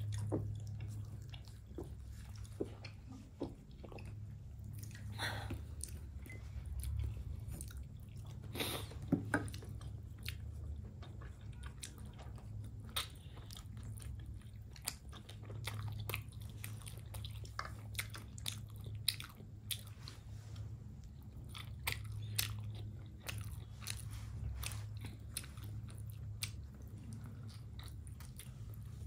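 A person chewing steamed chicken momos: many short mouth clicks and smacks over a steady low hum, with a couple of louder mouth sounds about five and nine seconds in.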